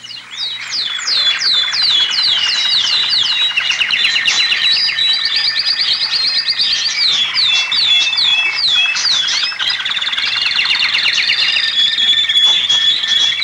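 Dubbed-in chirping sound effect: quick high whistles that fall in pitch, several a second, over a steady high whistling tone, with no background noise under it.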